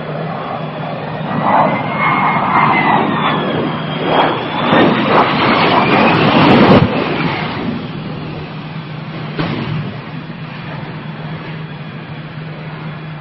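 Harrier jump jet's Pegasus turbofan running at hover power as the jet comes down, its turbine whine gliding up and down over the roar. The noise is loudest as the jet strikes the runway and catches fire about six to seven seconds in, then falls away sharply, with a single sharp crack a couple of seconds later.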